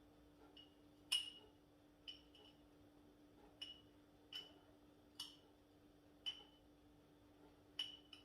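Light clinks of a utensil against glass or crockery, about nine at uneven intervals, each ringing briefly, the loudest about a second in, over a faint steady hum.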